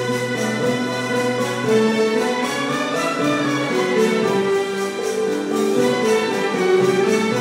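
Symphony orchestra playing live, strings prominent, moving through held notes and chords at a steady loudness.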